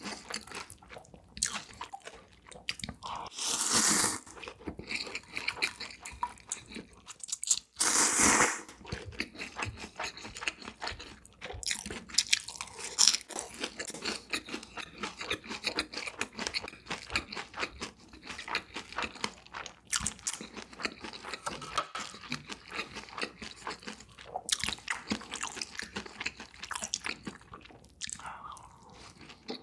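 Close-miked eating sounds: a person chewing and crunching food in quick, irregular bites, with two longer, louder bursts about four and eight seconds in.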